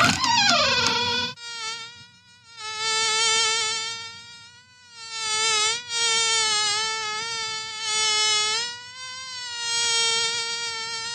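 A short falling whistle, then a steady, high, mosquito-like buzz that wavers slightly in pitch and swells and fades several times.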